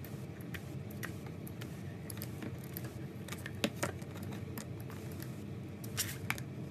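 Scattered small clicks and crackles of a slime-filled stress ball being handled and cut, with a sharper pair of clicks a little past the middle and again near the end, over a steady low hum.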